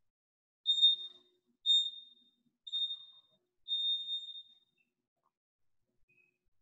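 Electronic timer beeping a countdown: three short, high beeps about a second apart, then a longer fourth beep.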